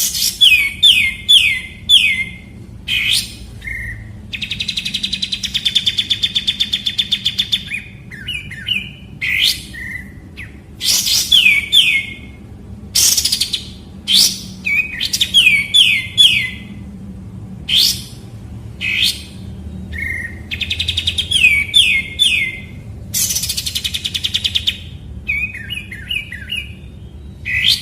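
Kapas tembak bulbul singing over and over, mixing sharp upward-sweeping whistles, quick runs of four or five notes that each dip and rise, and long rapid chattering rattles lasting a couple of seconds.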